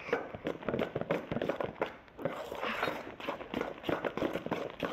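Sticky fluffy slime (glue, shaving foam and borax) being worked in a stainless steel bowl, giving a busy run of irregular wet clicks and crackles as it pulls away from the bowl.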